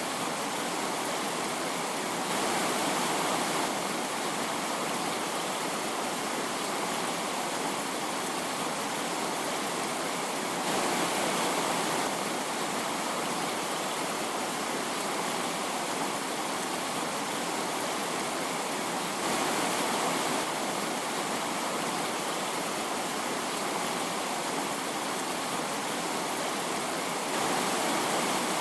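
Steady rushing hiss with no pitch, swelling briefly about every eight seconds.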